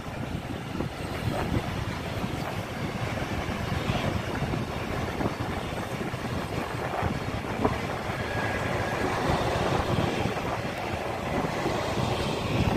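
Tank wagons of a freight train rolling past on the rails: a steady rumble of wheels on track with faint clicks scattered through it, mixed with wind on the microphone.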